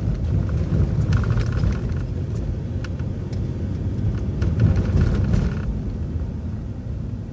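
City transit bus running along a street, a steady low drivetrain and road rumble with scattered light rattles and clicks, easing off slightly toward the end.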